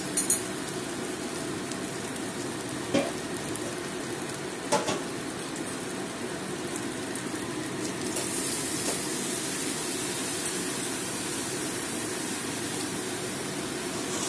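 Shrimp and spice paste sizzling steadily in oil in a metal kadai, with a few sharp clinks of the metal spatula against the pan. About eight seconds in, steamed, drained bottle gourd is tipped in and the sizzle gets louder and hissier.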